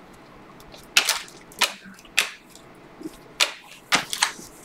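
Stiff, glossy Panini Prizm trading cards being flipped through by hand: a run of short, sharp clicks, one card snapping past the next, irregularly spaced and starting about a second in.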